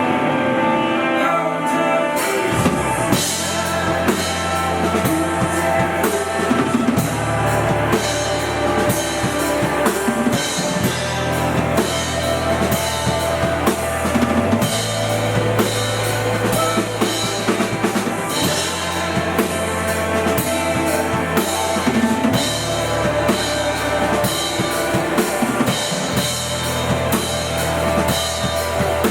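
A live band playing: the drum kit comes in about two seconds in with kick and snare under held bass notes and guitar chords.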